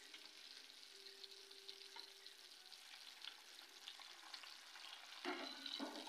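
Prawn vadas shallow-frying in oil: a faint, steady sizzle with scattered crackles as they are turned with a spatula. A louder spell of noise comes about five seconds in.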